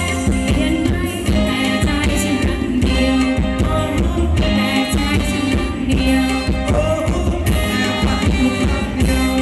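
A live band playing Thai ramwong dance music with a steady beat.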